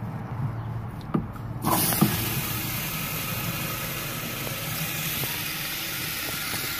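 Water from a garden hose spray nozzle running into a plastic bucket, filling it. The flow is quieter at first, then about a second and a half in it opens up into a steady hiss.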